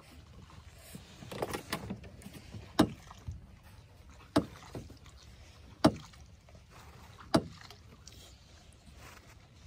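Knocks against the hull of a small boat on the water: a looser run of knocking and rattling about a second and a half in, then four sharp knocks evenly spaced about a second and a half apart.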